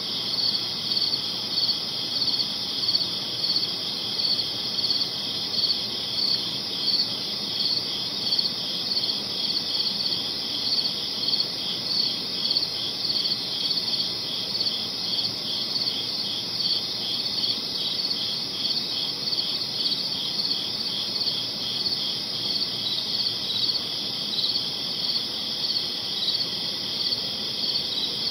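Crickets chirping in a dense night chorus, high-pitched trills pulsing in a steady, regular rhythm.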